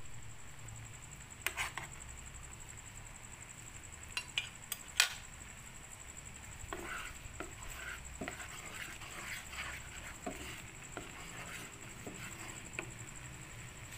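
A metal spoon clinks against a nonstick frying pan a few times, sharpest about five seconds in. Then a wooden spatula scrapes and stirs thick mashed-potato sauce around the pan in short irregular strokes.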